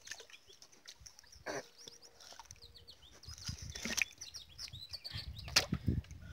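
Small birds chirping and twittering in quick, short, falling notes, with a few sharp knocks in between, the loudest about five and a half seconds in.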